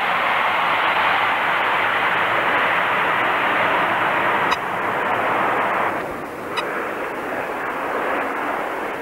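Jet airliner engines running hard on the runway, a loud, steady rushing noise. It drops abruptly about four and a half seconds in and again at six seconds, leaving quieter, more distant jet noise.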